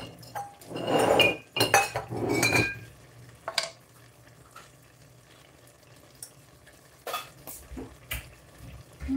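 Glass jars and kitchenware being handled on a counter: a clatter of knocks and ringing clinks over the first three seconds, then a few scattered knocks.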